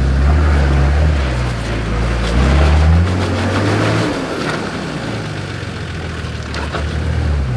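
Nissan Patrol 4WD engine revving as it crawls up and over a rutted mud bank, its pitch rising and falling for the first three seconds, then settling lower and quieter. A few sharp knocks come around the middle and again near the end.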